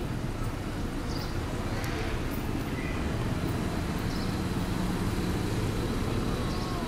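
Steady low outdoor rumble, of the kind traffic or a nearby engine makes, with a thin steady high whine and a few faint short chirps scattered through it.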